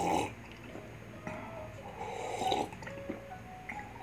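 A person drinking from a mug, with noisy sips of liquid: the loudest right at the start, and a longer, softer one from about a second and a half in.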